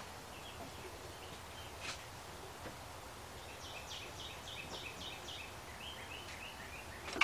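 Faint background hiss with a run of short, high two-note chirps, about three a second, for a few seconds in the middle.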